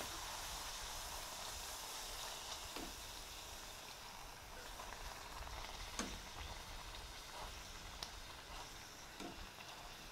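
Spinach puri deep-frying in hot oil: a steady sizzle, with a few light clicks, the sharpest about six seconds in.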